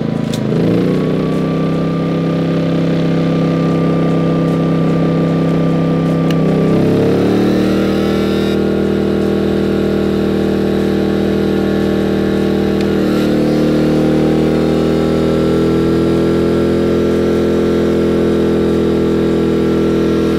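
Cummins Onan P2500i inverter generator's engine running under load, its speed stepping up three times as a toaster and a heat gun are added, climbing to about 2250 watts and carrying it without faltering. A heat gun blows alongside it, and the engine begins to slow right at the end as load comes off.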